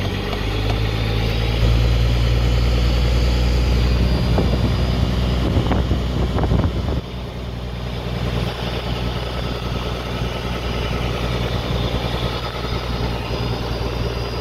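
Fishing boat's engine running steadily, a low hum, with a few knocks in the middle. The hum drops in level about seven seconds in.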